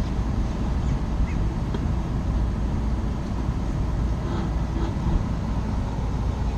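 Steady low rumble with a few faint light clicks of handling near the middle.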